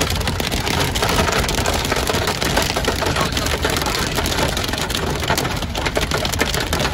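Dime-sized hail hitting a moving vehicle: a dense, steady clatter of countless small hits over the low rumble of the vehicle driving.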